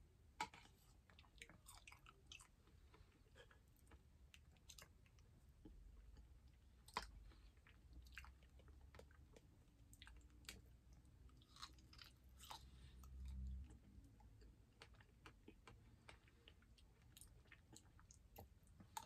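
Faint eating sounds of a yogurt and berry parfait: soft chewing and wet mouth clicks, with small clicks of a spoon in a plastic cup scattered through.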